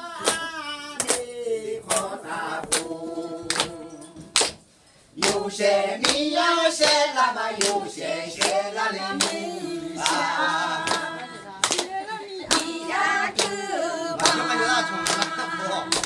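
Aini (Akha) folk song: a group of voices singing together with hand claps keeping time, about two claps a second. The singing and clapping break off for a moment about five seconds in, then carry on.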